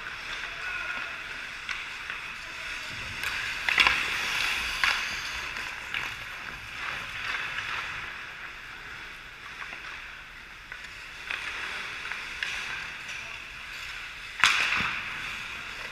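Ice hockey skates scraping and carving on the ice, with a few sharp clacks of stick and puck, the loudest about four seconds in and near the end.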